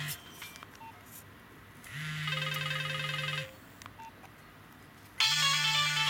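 A Nokia 2310 mobile phone playing its built-in ringtones through the speaker as previews while the ringtone list is scrolled. One melody cuts off at the start, a short snippet of another plays for about a second and a half, with short beeps in the gaps, and a new, louder ringtone starts near the end.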